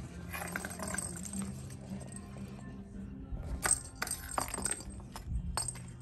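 A kitten's paws splashing in shallow water in a plastic plant saucer, with a cluster of sharp splashes between about three and five seconds in and a few more near the end, over light background music.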